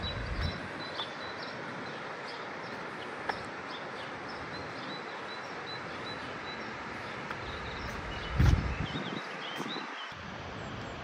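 Outdoor meadow ambience: small birds chirping in short high calls over a steady rushing background. About eight and a half seconds in, a brief gust of wind buffets the microphone.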